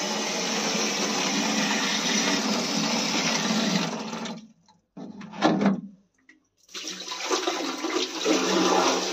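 Tap water gushing steadily into a large jar. About four seconds in the flow cuts out abruptly and there is one short louder burst of water, then the steady gush starts again.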